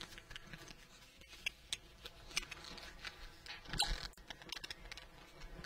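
Faint, scattered clicks and brief rustles of someone handling things and moving about, a little busier a few seconds in.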